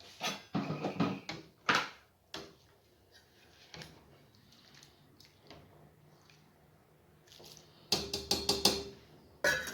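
Cookware and utensils clattering: scattered knocks and clanks, then a quick run of metallic strikes with a short ring near the end, like a spoon knocked against a pot.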